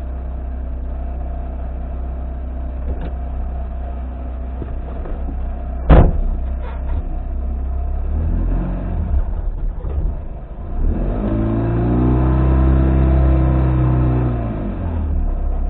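Car engine idling, picked up by a dashboard camera inside the cabin, with one sharp knock about six seconds in; then the engine revs up and eases off again as the car pulls away.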